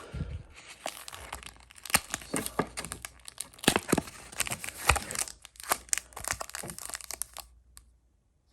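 Foil wrapper of a Pokémon booster pack crinkling and tearing as it is opened by hand: a dense run of sharp crackles that stops abruptly about a second before the end.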